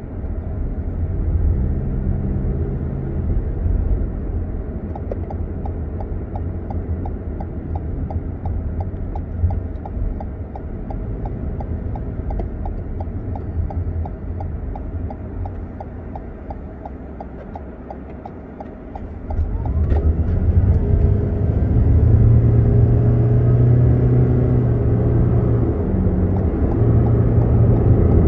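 Car engine and road rumble heard from inside the cabin. A turn indicator ticks steadily for about ten seconds while the car waits to turn. About twenty seconds in the car pulls away and the engine and road noise grow louder.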